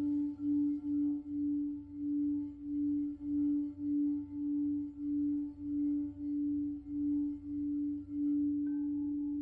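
Crystal singing bowl sounding one sustained, pure tone that swells and fades a little under twice a second. Near the end a second, higher tone comes in and the sound steadies.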